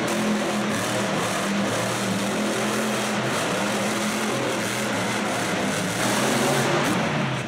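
Monster truck's supercharged alcohol-burning V8 running under throttle as the truck spins donuts in the dirt, a steady engine note that gets louder about six seconds in.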